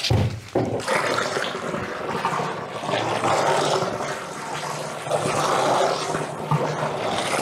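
Clear liquid poured in a steady stream from a tin can into a plastic drum, splashing into the drum. There is a short knock at the start.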